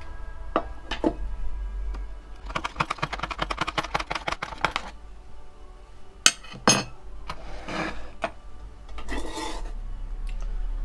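Teaspoon stirring a hot drink in a metal camping mug, clinking quickly against the sides for about two seconds. Then two sharp taps of the spoon on the rim, followed by a couple of brief scraping rustles.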